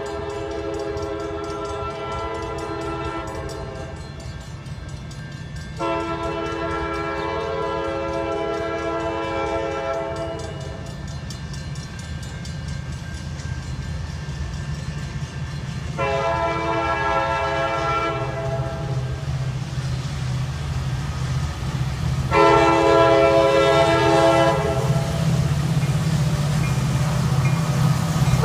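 CSX diesel freight locomotive sounding its multi-tone air horn in four long blasts as it approaches, a fifth beginning at the very end. The low engine rumble underneath grows steadily louder as the train draws near.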